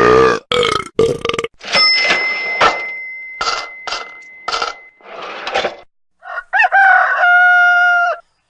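A string of short, unrelated sound-effect clips cut one after another with brief gaps: a belch-like sound at the start, a run of short clips over a steady high ringing tone in the middle, and a long held, pitched call near the end.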